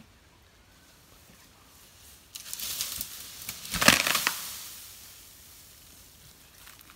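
An elephant going down into dense undergrowth: crackling and crushing of branches and leaves, rising to a heavy thud of its body hitting the ground about four seconds in, then dying away.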